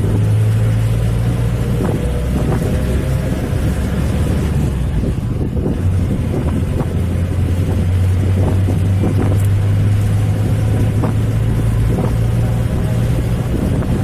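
Motor vehicle's engine running at a steady speed with road noise, heard from inside the moving vehicle, with occasional knocks.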